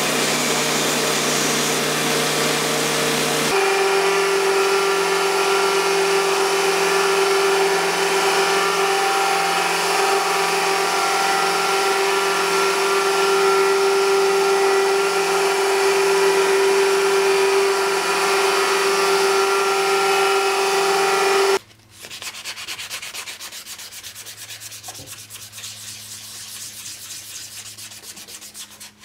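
Belt grinder running with a steady whine while steel handle fittings are ground against the abrasive belt, the grinding noise changing abruptly a few seconds in. About seven seconds before the end it stops and gives way to quieter, fast, even hand rubbing of the steel guard with an abrasive pad.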